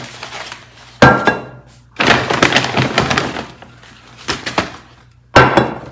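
Groceries being handled and set down on a counter: a hard knock with a short ring about a second in, then a stretch of rustling, and another knock near the end.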